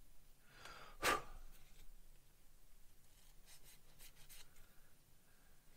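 Fine side of a sanding stick rubbing on a small clear plastic kit part in faint, short scratchy strokes, smoothing away the sprue nub. One louder, brief rustle comes about a second in.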